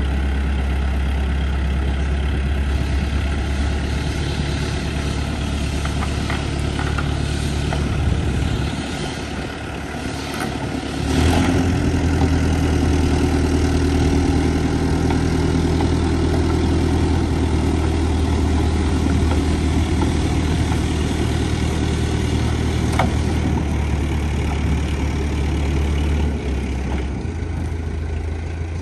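Diesel engine of a JCB 537 telehandler running steadily while towing a tank hull on a chain; it dips briefly, then runs louder and higher from about eleven seconds in as it takes the load.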